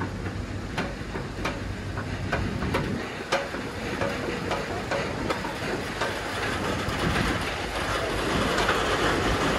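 Goldhofer multi-axle modular trailer hauling a heavy load and rolling very slowly: a steady low rumble with frequent sharp clicks and clanks.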